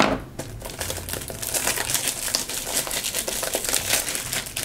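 Plastic shrink wrap on a toy package crinkling as it is handled and pulled off by hand: a dense, continuous crackle.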